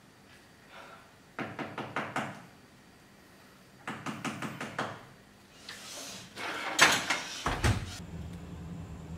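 Rapid knocking on a door in two runs of about five quick knocks each, then a louder thump about seven seconds in, followed by a low rumble.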